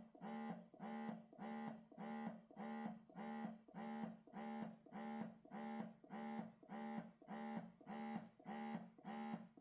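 Medela Motion wearable breast pump running its suction cycle: faint, even buzzing pulses of the motor, about two a second.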